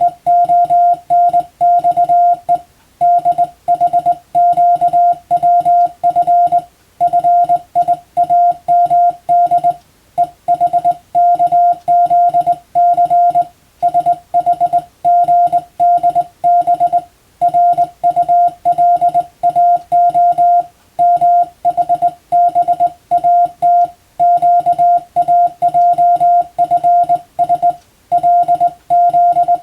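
Morse code (CW) practice transmission: a single steady high tone keyed on and off in dots and dashes, sending English-language telegram text in letter groups with short pauses between them.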